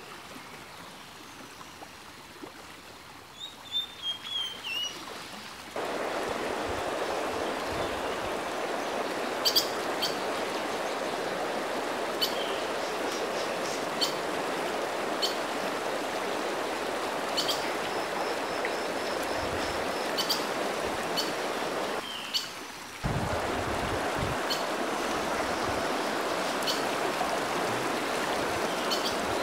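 Small creek's water rushing steadily, coming in suddenly about six seconds in and breaking off for about a second near the last third. Before it, a quieter stretch with a few short bird chirps.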